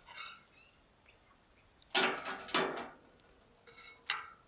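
Metal cooking utensils clattering and scraping against the steel plate and folding stove, with a loud burst of two clanks about two seconds in. A single sharp metallic click follows near the end.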